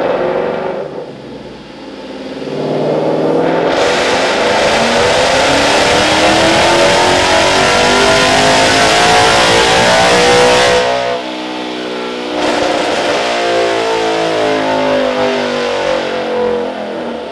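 2013 Mustang GT's 5.0 Coyote V8, breathing through Kooks long-tube headers and a catted mid-pipe, making a wide-open-throttle pull on a chassis dyno. After a brief dip in revs in the first couple of seconds, it goes to full throttle about four seconds in and the exhaust note climbs steadily with rpm until the throttle closes about eleven seconds in, then the note falls slowly as it coasts down.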